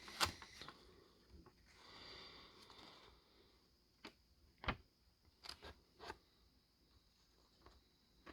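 Faint handling of paper leaflets: a soft rustle of paper about two seconds in, then several light clicks and taps as the papers and box are handled.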